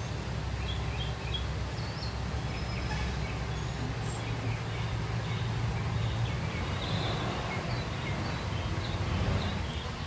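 Outdoor garden ambience: a steady low rumble with a few faint bird chirps now and then.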